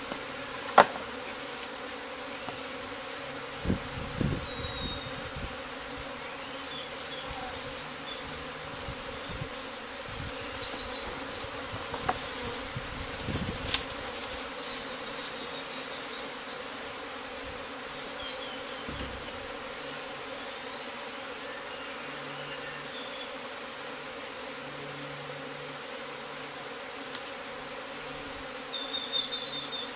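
Honeybees from a swarm buzzing steadily in a dense cloud around an opened wooden hive, with a few sharp knocks and thuds as hive frames and boxes are handled. The loudest knocks come about a second in and near the middle.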